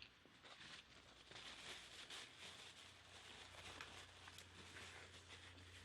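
Faint chewing of a carnitas taco, with soft irregular wet clicks and crackles of mouth sounds, over a low steady hum.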